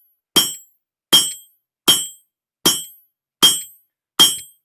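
Hammer blows on hot steel at the edge of an anvil, six even strikes a little under a second apart, each with a short metallic ring. A 3-pound hammer is drawing down the bar's end.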